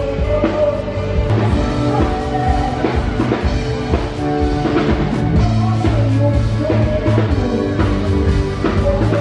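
Music with drums and sustained instrument notes.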